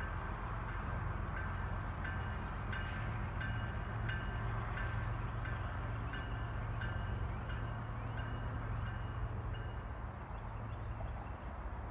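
Approaching diesel freight locomotives, a CSX GE ES44AH leading a Union Pacific EMD SD70M, running with a steady low drone. Over it a bell rings about every two-thirds of a second, stopping about nine seconds in.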